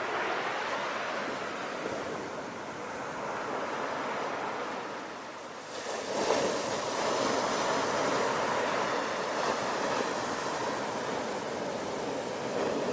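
Sea waves washing in and out on a shore, with a louder surge of breaking surf about six seconds in that stays up after a short lull.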